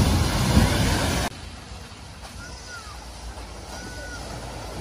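A car ploughing through a flooded ford, its wheels throwing up a loud spray of water, which cuts off abruptly about a second in. After that a much quieter low rumble of a car wading slowly through shallower floodwater, with a few faint short whistle-like sounds.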